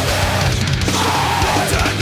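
Heavy rock music with distorted guitars and a steady beat.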